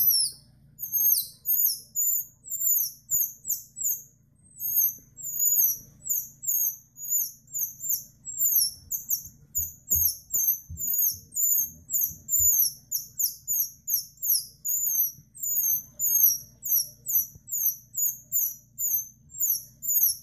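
Short, high-pitched squeaks made by sucking air through a piece of plastic grocery bag held between the lips, imitating a distressed juvenile squirrel. They come in an uneven run of about two a second, many dropping in pitch at the end.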